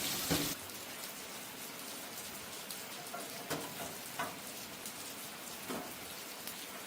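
Steady hiss with a few faint ticks and taps, following a louder, fuller sound that cuts off suddenly about half a second in.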